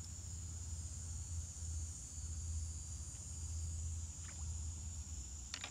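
A steady, high-pitched insect drone from the waterside trees over a constant low rumble, with a couple of light clicks near the end.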